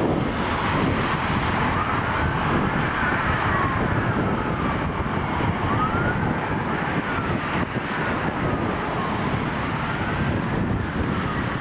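Fire-engine sirens wailing in slow, rising and falling glides, several overlapping, over a steady low rush of wind on the microphone and road noise.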